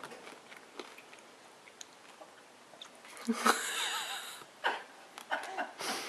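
A baby making breathy, wheezy sounds and mouth noises while taking a spoonful of peas. They start about three seconds in, and a shorter one follows a second later.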